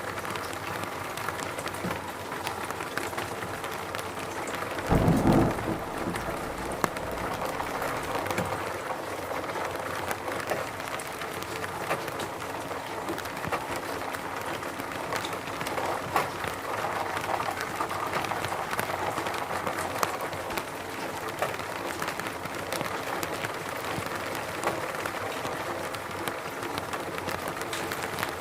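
Steady rain falling, with scattered sharper drop hits and a brief low rumble about five seconds in.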